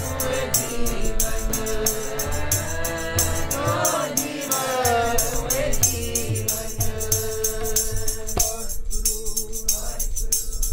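Sikh keertan: devotional singing of a shabad over harmonium, with a steady run of jingling percussion. The singing stops about five or six seconds in, leaving the harmonium's held notes and the percussion going.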